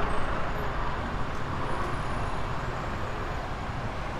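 Steady engine and road noise of a car on the move, heard from the car, with a strong low rumble, easing off slightly.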